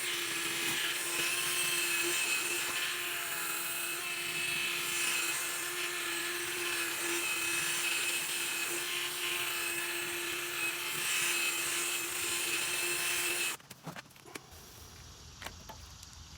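Drill spinning a sanding disc against a plastic headlight lens, wet-sanding it: a steady whine with a scratchy sanding hiss that stops abruptly about thirteen and a half seconds in, followed by a few faint handling sounds.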